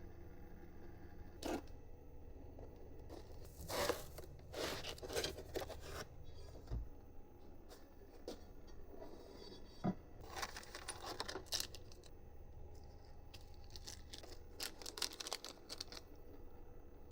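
Plastic film being torn and crinkled by hand, in irregular bursts with pauses between them.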